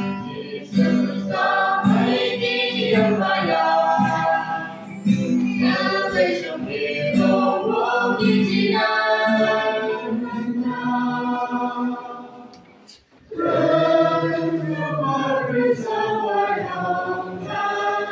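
Church choir of men and women singing a hymn together. The singing breaks off briefly about two-thirds of the way through, then starts again.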